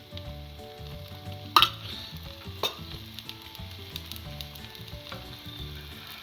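Beaten egg omelette sizzling steadily in oil on a hot dosa griddle, with two sharp clicks about a second and a half and two and a half seconds in.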